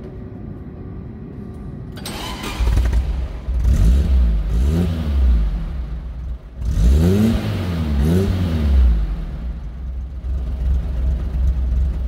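Car engine cranked and starting about two seconds in. It is revved in two short bursts, then settles into a steady idle. The spark plugs have just been cleaned to cure a misfire, and the owner finds it no longer misfiring.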